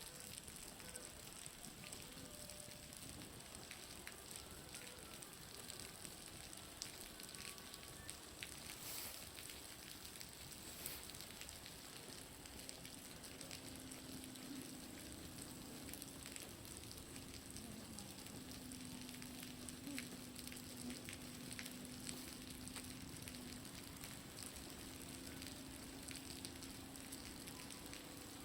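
Meltwater dripping and trickling off a building's roof, making a steady crackling, sizzling patter of small drips that sounds like a bonfire burning. A faint low hum comes in about halfway through.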